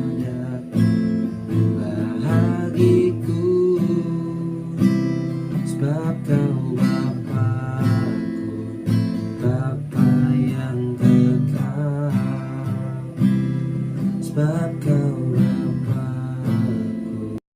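Acoustic guitar strummed and picked, playing the accompaniment of a slow song. It cuts off abruptly near the end.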